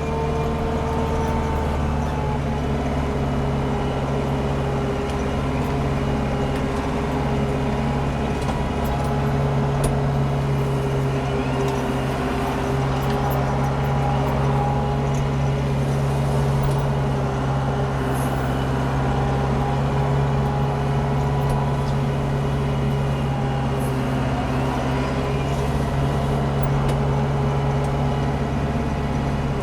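Landini Blizzard 65 tractor's diesel engine running steadily under load, powering a Taarup flail mower that is chopping roadside grass, heard from inside the cab.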